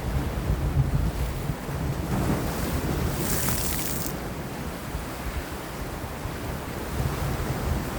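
Sea waves washing against rocks with wind buffeting the microphone in low gusty rumbles; a brighter hissing surge of spray about three seconds in.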